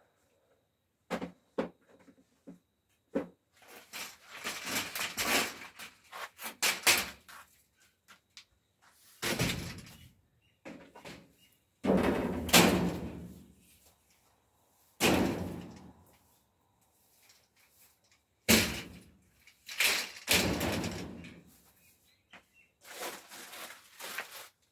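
A wooden lattice door panel being handled: light clicks and knocks, then a stretch of scraping and rustling, then about half a dozen loud, irregularly spaced bangs and thuds, each ringing on for a second or so.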